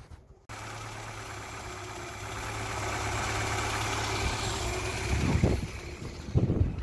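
Volkswagen Golf Mk2 1.6-litre four-cylinder petrol engine idling steadily with the air filter lid off, freshly fitted with a new timing belt, tensioner, distributor cap and plug wires. The sound cuts in about half a second in, and two short low thumps come near the end.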